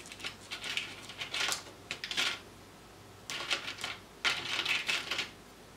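Rummaging in a clear plastic parts box of pin-header strips: irregular bursts of rattling and clattering, plastic and metal knocking together, the longest burst near the end.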